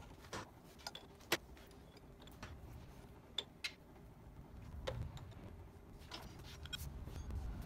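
Scattered light metal clicks and clinks as a hole saw is fitted into the milling machine's drill chuck. The sharpest click comes about a second in.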